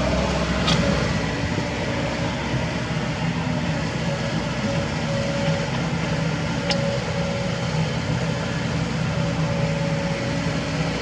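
Kobelco SK75 mini excavator's diesel engine running steadily at a constant pitch as it works, with two brief sharp clicks, one near the start and one about halfway through.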